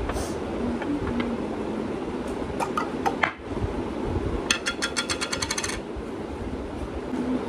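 Small clicks and knocks of objects being handled, with a quick, even run of about a dozen clicks a little past the middle, over a steady low rumble.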